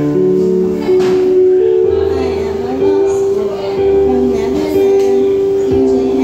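A young girl singing into a microphone over acoustic guitar accompaniment, with held chords under her melody.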